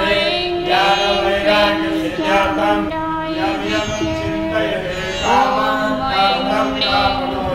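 Devotional music: a chanted hymn sung with long held notes.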